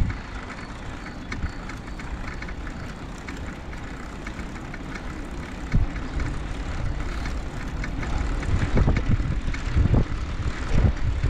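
ICE Adventure recumbent trike rolling along a tarmac path: a steady running and tyre noise with scattered small clicks and rattles. Low wind buffeting on the microphone grows stronger in the last few seconds.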